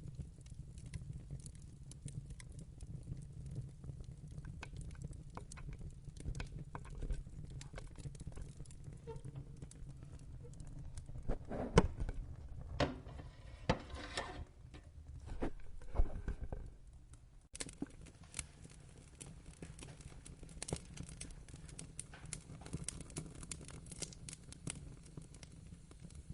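Wood fire crackling, with scattered sharp pops over a low steady rumble of flames; a louder run of pops and crackles about halfway through.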